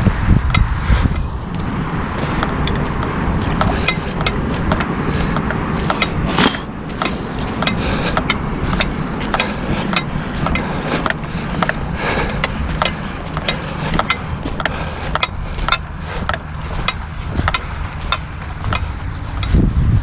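Footsteps tramping through wet marsh grass and mud, with a steady low rushing and many irregular sharp clicks and knocks.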